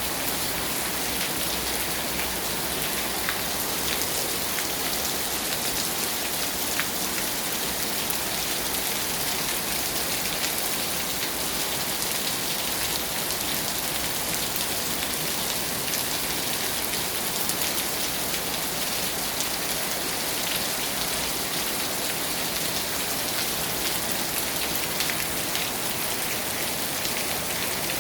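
Heavy rain falling steadily on pavement and a pavilion roof, a dense even hiss with the sharp ticks of individual drops scattered through it.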